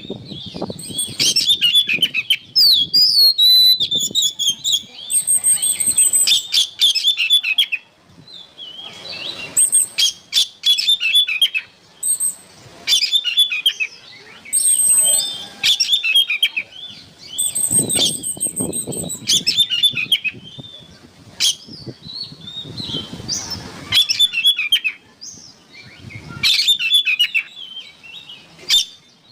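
Oriental magpie-robin (kacer) singing a long, varied song: rapid chattering phrases broken by high, clear whistled notes, in repeated bursts with short pauses between them.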